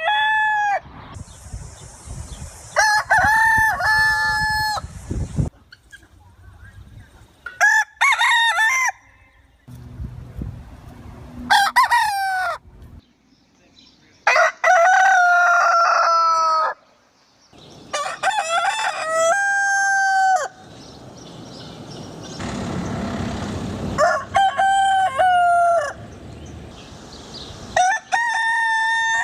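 Roosters crowing again and again, about eight long crows spaced a few seconds apart, some higher-pitched than others.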